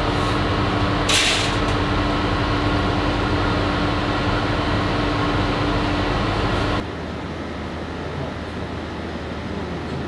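Steady machine hum with a constant drone under an even rushing noise, like ventilation or refrigeration running. There is a brief hiss about a second in, and the hum drops away to a quieter steady hiss about seven seconds in.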